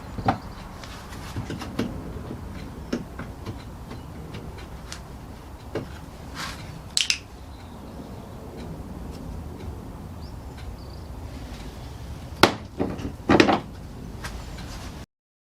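Scattered clicks and knocks of hand tools and plastic, the sound of working a bumper-cover bolt out from behind a car's front wheel arch liner. The loudest knocks come about seven seconds in and near the end, and the sound cuts off suddenly just before the end.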